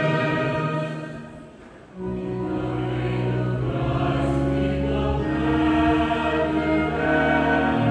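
A choir singing slow held notes with instrumental accompaniment. The music fades out about a second in, and a new passage comes in sharply about two seconds in.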